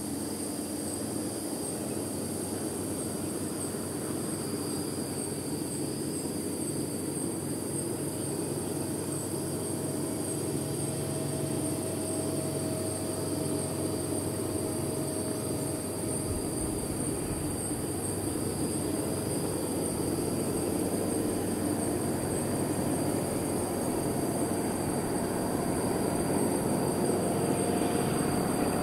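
Distant diesel locomotive engine running as the train approaches, a steady rumble that grows gradually louder, with a deeper rumble coming in about halfway through.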